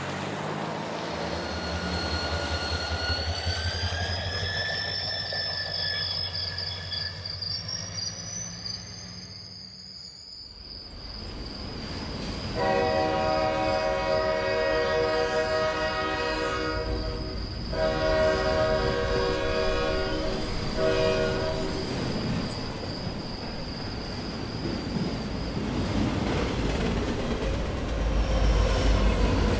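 Diesel locomotive sounds: a low engine hum with a high whine rising in pitch, then the horn sounding two long blasts and a short one a little before halfway through, followed by rumbling running noise.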